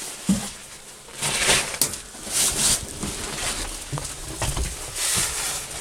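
Rustling, shuffling and a few light knocks as someone climbs into a tractor cab, with the engine not yet running.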